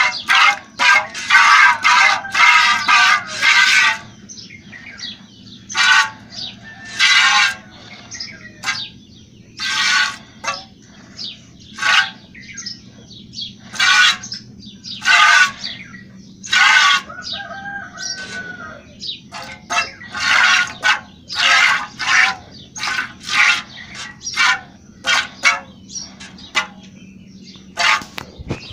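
Milk squirting by hand from a cow's teats into a steel milking pail, each pull a short hissing squirt against the metal. The squirts come about twice a second for the first four seconds, then slow to roughly one a second.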